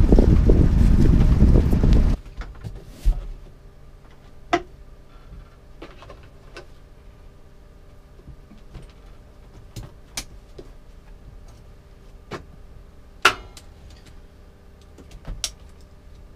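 Wind buffeting the microphone, with water rushing past a sailboat underway, cutting off abruptly about two seconds in. Then a quiet cabin: scattered clicks and knocks of a plastic gas can being handled, over a faint steady hum.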